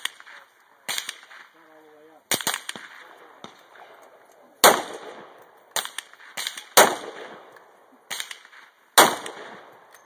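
Rifle shots on an outdoor firing range: about nine sharp shots at irregular spacing and varying loudness, too many for one bolt-action rifle, so several guns are firing. Each shot trails off in a short echo.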